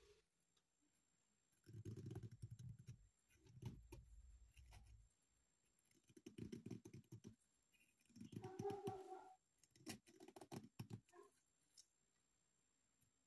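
Faint scraping and clicking of a scalpel blade shaving curls off a wooden toothpick, in several short bouts with glove handling noise. About two-thirds of the way through, a brief humming sound is the loudest thing.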